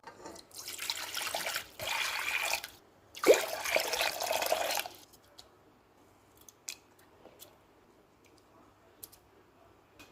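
Water poured in three spells of a second or two each, followed by a few light clicks.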